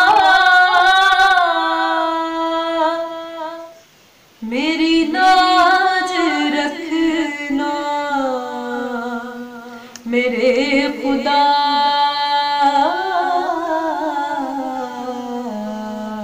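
A woman's voice singing an Urdu naat unaccompanied, in long drawn-out phrases with held notes. There is a brief pause about four seconds in, and a new phrase starts at about ten seconds.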